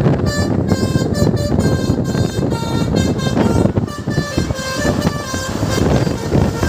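Indonesian bus 'telolet' multi-tone horn playing a quick melody of short stepped notes, over the low rumble of the bus and traffic.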